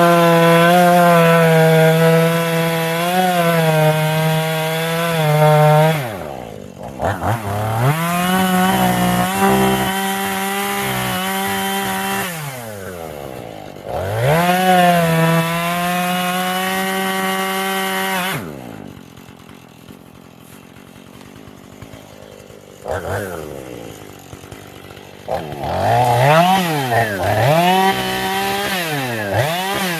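Two-stroke chainsaw cutting through a log, held at high revs for several seconds at a time. Between cuts it drops back toward idle and is revved up and down, most of all near the end.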